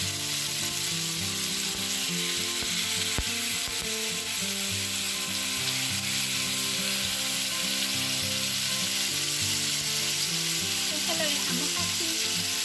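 Tuna steaks frying in olive oil in a nonstick pan, a steady sizzle. The fish is still a little wet, so the water and oil spit.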